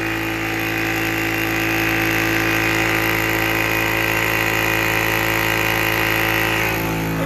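Water-cooled Yong Heng 4500 psi high-pressure PCP air compressor running steadily under load, building pressure quickly: a constant motor hum with a higher whine. Its tone changes near the end, when the higher whine drops away and a lower hum comes in.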